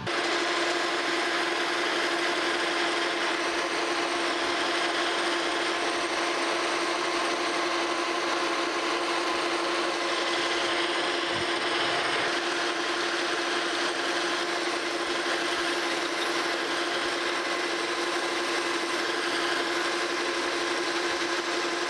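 Monarch Model K metal lathe running under a roughing cut, a carbide-insert tool turning down the diameter of a steel shaft. It makes a steady cutting hiss over a constant tone from the running machine.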